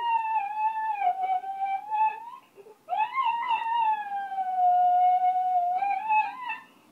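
A dog howling: two long wavering howls, the second starting about three seconds in, sliding slowly down in pitch and breaking up near the end.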